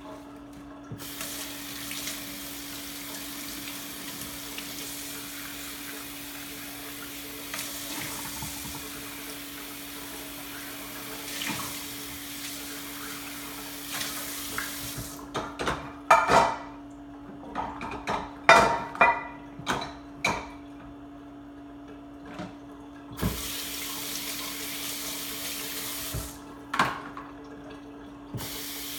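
Kitchen faucet running into a steel sink as dishes are rinsed by hand. The water stops for a few seconds in the middle while dishes clink and clatter against each other, then it runs again in short spells, with one more clink near the end.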